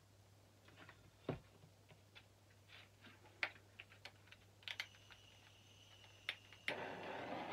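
Scattered small clicks and taps with a thump about a second in, then near the end a handheld butane torch clicks alight and its flame hisses steadily, used to bring silicone-oil cells up through the poured acrylic paint.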